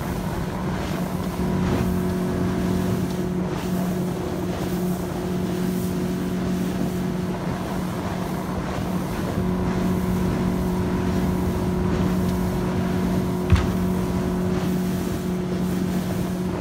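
Motorboat engine running steadily under way, a constant low drone with some wind on the microphone. One sharp knock a few seconds before the end.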